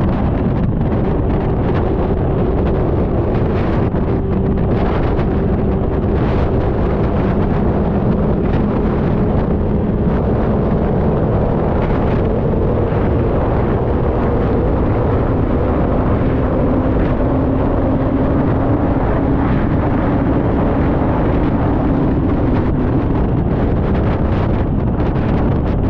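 Loud, steady wind buffeting on a GoPro Hero 9 action camera's microphone while riding, the annoying wind noise the camera picks up at speed. A low hum drifts slowly in pitch underneath.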